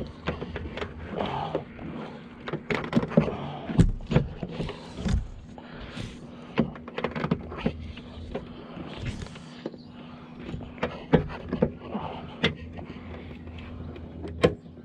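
Irregular plastic clicks, taps and knocks of hands working at a Saab 9-5's interior door panel, freeing it to be lifted off, over a steady low hum.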